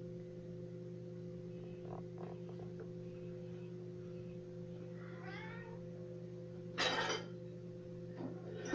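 A cat meows once, briefly, about five seconds in, over a steady low hum. Then dishes clatter against a dishwasher rack as they are lifted out, the loudest sound, near the end.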